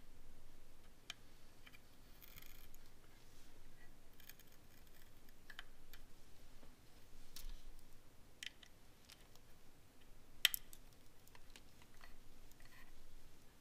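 Allen wrench tightening the small lock-washered screws of a sensor mount: faint scattered metal clicks and a little scraping, with one sharper click about ten seconds in.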